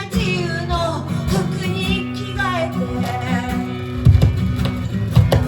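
Live band music: guitar and bass under a gliding, wavering melody line, with heavier low beats coming in about four seconds in.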